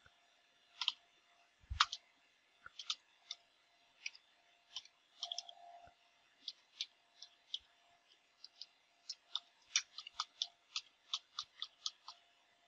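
Typing on a computer keyboard: light, irregular key clicks, sparse at first and coming faster from about nine seconds in.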